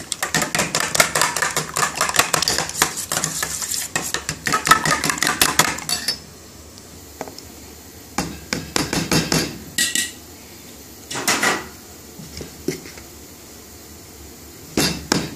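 Eggs being beaten in a stainless-steel bowl: a rapid metal clatter of the utensil against the bowl for about six seconds, which then stops. A few scattered clinks and scrapes follow, and a short burst of clatter comes near the end.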